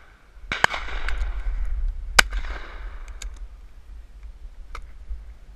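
Several shotgun shots from a line of guns. Two come in quick succession about half a second in, the loudest a little after two seconds, and fainter, more distant shots follow later, each echoing briefly. A low rumble of wind sits on the microphone underneath.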